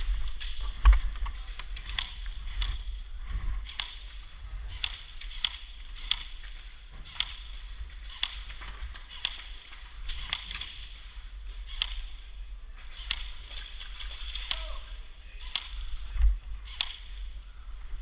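Irregular sharp clicks and snaps, about one or two a second, over a steady low rumble.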